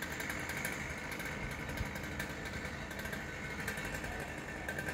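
The pile-driving rig's engine idling steadily, with no hammer blows.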